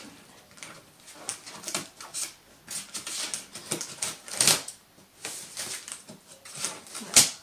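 Scissors cutting through the packing tape on a cardboard shipping box: an irregular run of crisp snips and scrapes against tape and cardboard. The loudest cuts come about halfway through and again near the end.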